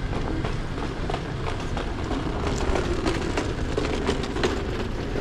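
City street ambience: a steady low rumble of traffic, with footsteps clicking on paving stones about twice a second.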